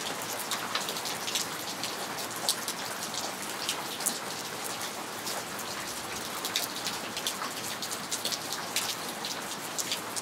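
Steady rainfall, with many individual drops striking sharply and irregularly.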